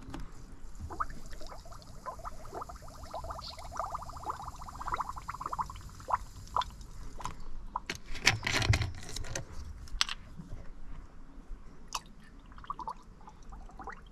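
Coolant gurgling in a small filler reservoir for about five seconds as freshly poured antifreeze drains into a boat motor's water cooling system. About eight seconds in, a plastic water bottle crinkles and clicks as it is handled and its cap is opened.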